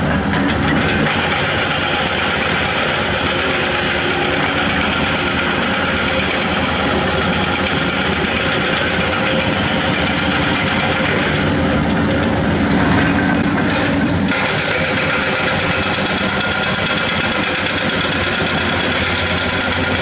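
Diesel engines of Komatsu PC200 hydraulic excavators running steadily as they dig. A little past the middle, one engine works harder for a couple of seconds.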